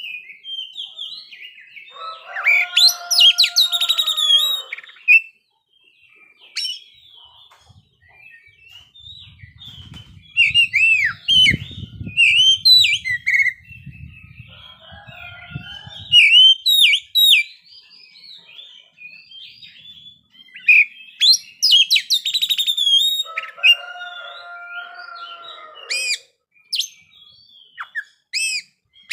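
Oriental magpie-robin singing a long, varied song of clear whistles, rapid chirps and pitch glides: the full, continuous song that keepers call "ngeplay". Two denser, louder passages with lower notes come a couple of seconds in and again about 22 seconds in.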